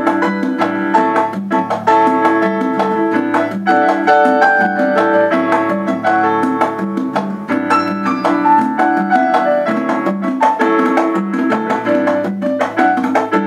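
Instrumental break of an Afro-Peruvian festejo song: pitched instruments play a melody over a steady percussion beat, with no singing.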